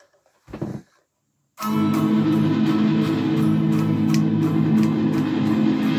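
Offset-body electric guitar played through an amplifier. After a brief sound about half a second in, loud strummed chords start at about a second and a half, keeping a steady rhythm of about three strokes a second.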